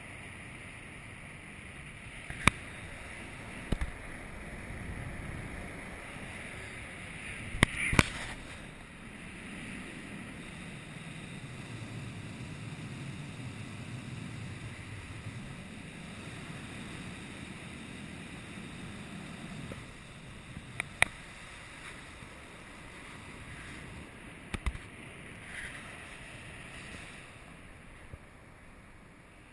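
Wind rushing over the microphone from a paraglider's airflow in flight, a steady rush that swells in the middle and eases near the end. A few sharp clicks and knocks break through it.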